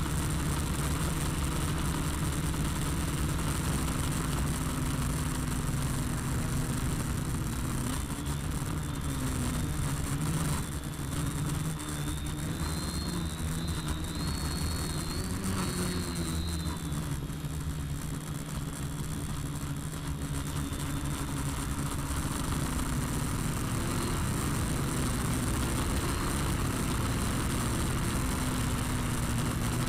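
Quadcopter's electric motors and propellers whirring as heard from its own on-board camera, a steady drone of several tones that drift in pitch with the throttle, rising for a few seconds around the middle and settling again.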